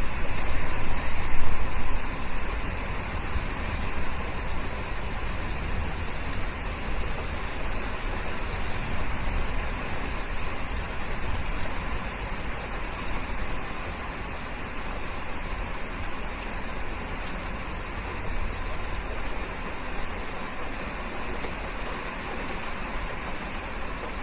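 Steady rain falling, a dense even hiss with a low rumble underneath; it is a little louder for the first couple of seconds, then settles.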